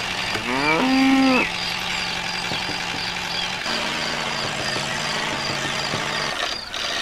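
A cow moos once, a call that rises in pitch and then holds for about a second before breaking off, over a steady engine-like hum with a faint regular ticking that carries on through.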